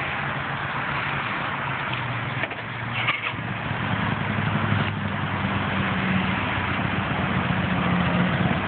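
A vehicle engine idling with a steady low hum over a constant hiss of road noise. The engine hum grows stronger about four seconds in.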